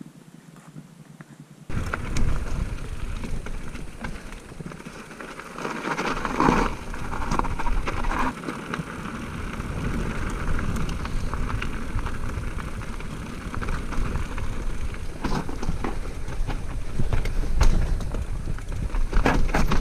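Mountain bike riding down a rocky, loose-stone trail, heard from a camera mounted on the bike: tyres crunching over stones and the bike rattling and knocking over rocks, with wind rumble on the microphone. It starts suddenly about two seconds in.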